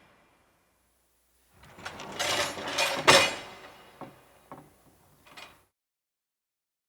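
A door being shut: a short swishing movement builds up, then a sharp bang about three seconds in, followed by a few light clicks and rattles as it settles.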